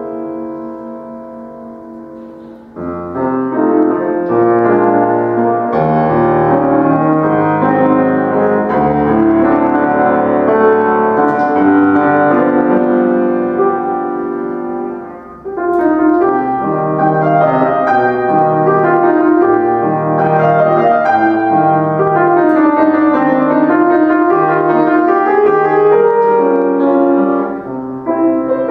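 Solo grand piano playing a classical piece: a held chord dies away over the first few seconds, then the playing comes back in louder with a bass line under the melody, and breaks off briefly about halfway before going on.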